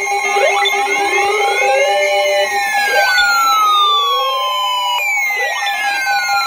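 Several electronic siren tones sounding loudly at once. Short rising sweeps repeat about once a second, and long wails fall slowly in pitch, all over a few held steady tones.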